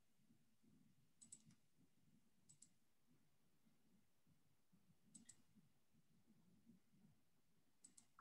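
Near silence, broken by four faint double clicks of a computer mouse spread across the few seconds.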